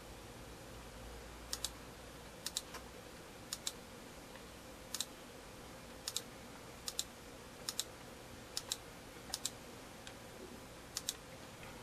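Faint computer-mouse button clicks, about a dozen spaced irregularly, each a quick double tick of press and release, as characters are picked one at a time on an on-screen keyboard.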